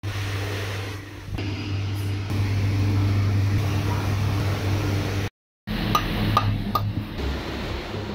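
Steady low mechanical hum, broken by brief edit cuts, with a few sharp metallic taps about six seconds in.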